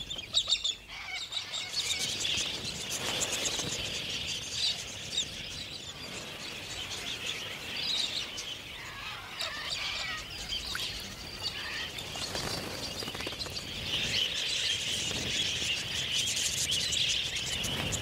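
Wild budgerigars chattering: a continuous warble of many small, quick chirps, busiest near the end.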